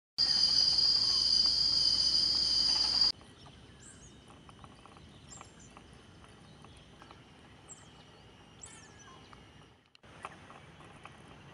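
Loud, steady, high-pitched insect chorus that cuts off abruptly after about three seconds. A much quieter outdoor background follows, with a few short chirps and faint clicks.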